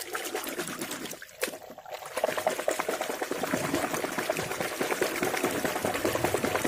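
Muddy water sloshing and splashing as a toy car is swished back and forth through a shallow puddle by hand. The sloshing starts suddenly and grows louder about two seconds in.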